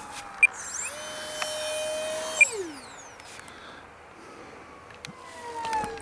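Electric ducted fan of a TechOne Neptune 64 mm EDF flying wing whining as the jet flies past low, its pitch gliding down as it passes about two and a half seconds in, and falling again near the end. Two sharp clicks stand out above it.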